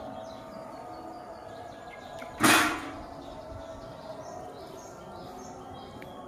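Outdoor background with faint bird chirps, broken about two and a half seconds in by a short, loud rush of noise that fades within half a second.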